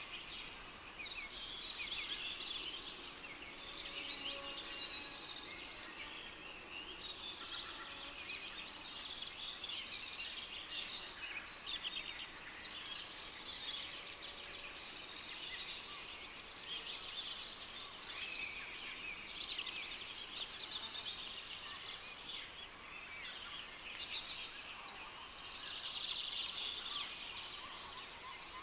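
Rainforest ambience: a cricket chirps in a steady high pulse a few times a second, and a chorus of birds calls over it with many short chirps and whistles.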